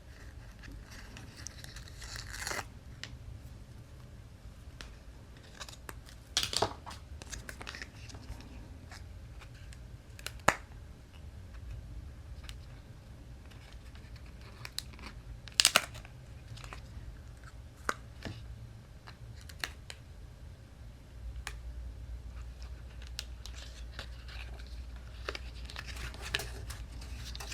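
Cardstock pieces being handled and folded, paper rustling with scattered sharp clicks and taps, the loudest a few seconds apart.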